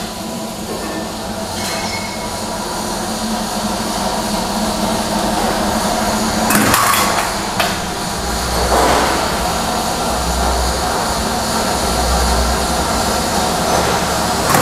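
Automatic wire straightening and cutting machine running: a steady mechanical drone with a low hum that grows slowly louder, with a few sharp metallic knocks about halfway through.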